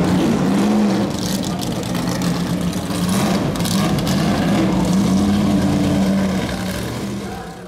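Greenwood Corvette's ZL1 427 aluminium big-block V8 running at low revs as it rolls slowly, the pitch rising and falling slightly a couple of times, fading out near the end.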